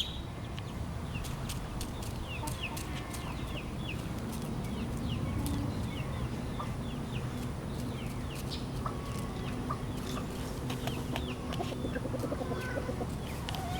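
Bird calling in short, high, falling chirps, repeated irregularly, over a steady low rumble.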